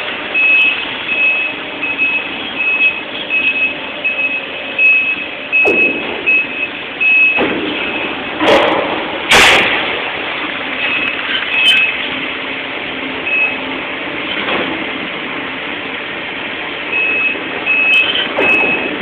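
Steel demolition by a heavy excavator: a reversing alarm beeps over steady machinery noise, and loud metal crashes and bangs come about halfway through, the heaviest near the middle.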